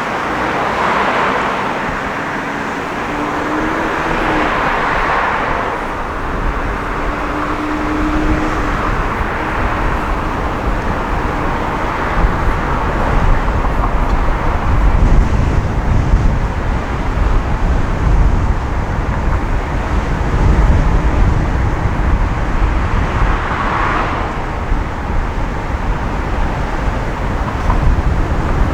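Street traffic heard from a camera on the roof of a moving van: a steady wash of tyre and road noise, with passing vehicles swelling up a few times, and a low rumble on the microphone growing heavier about halfway through.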